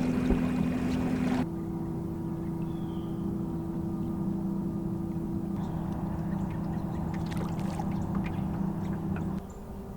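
Boat motor running steadily with an even hum. Its pitch shifts abruptly about a second and a half in, and it stops shortly before the end.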